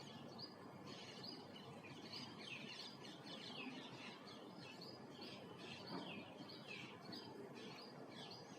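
Faint chirping of small birds: many short calls, each falling in pitch, repeated a few times a second over a soft outdoor hiss.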